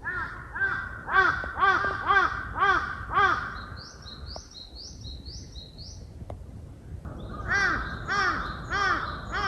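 Crows cawing in a run of repeated caws, about two a second. They stop for a few seconds in the middle and start again near the end. Behind them a smaller bird repeats high, rising notes.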